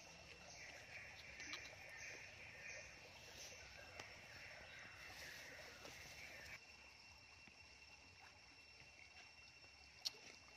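Near silence: faint outdoor background, quieter after about six and a half seconds, with a single sharp click near the end.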